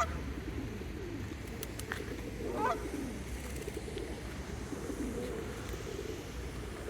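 Birds calling: low, wavering coos run on throughout, with a short rising call about two and a half seconds in.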